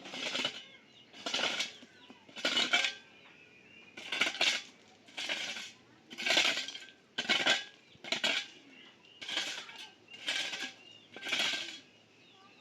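Repeated gritty scraping strokes, about one a second, each short with a clinking rattle.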